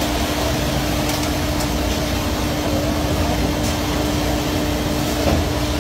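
A boat's engine running steadily with a constant hum, over the rush of churned water alongside the hull.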